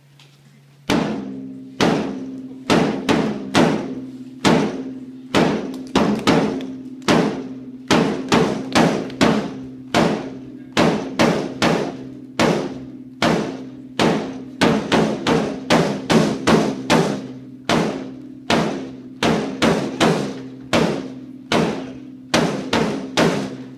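A drum struck over and over in a beat of about one and a half strokes a second, starting about a second in, each stroke ringing on under the next.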